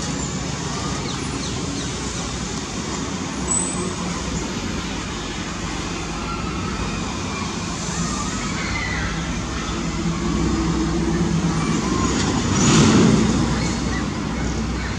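Steady road-traffic noise with a low engine hum; it grows louder from about ten seconds in, peaks near thirteen seconds as a vehicle passes close, then eases off.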